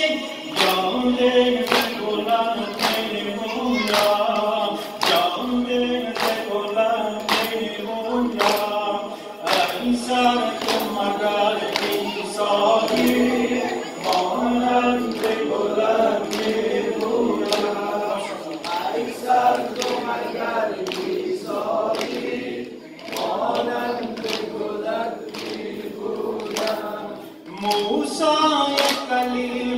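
A male reciter chants a Shia mourning lament (noha) and a congregation of men sings along. A steady beat of chest-beating slaps (sineh-zani) comes a little more than once a second.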